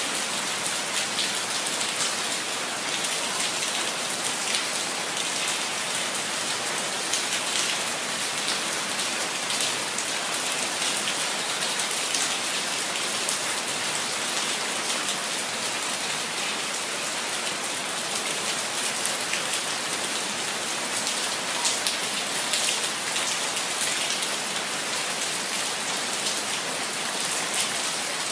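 Steady rain falling: a dense, even hiss of many fine drops that holds at the same level throughout.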